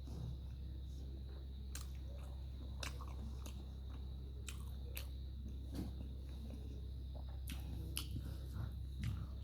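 A person chewing and biting into food close to the microphone, with crisp crunches and sharp clicks scattered through. The food is chicken phaley, a deep-fried bread stuffed with chicken.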